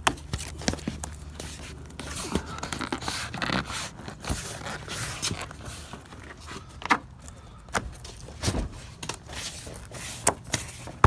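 Window side stops being pressed back into a casement frame: scraping and handling noise with a series of sharp clicks and knocks as the pieces pop into place.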